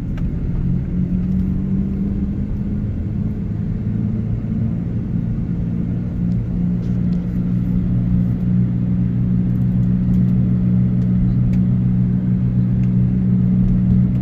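Steady low hum of a running motor, holding one pitch with two strong low tones.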